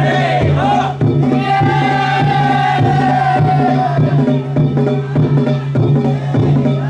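Danjiri festival music: a steady drum beat under quick clanging strokes, with a flute holding one long note through the middle.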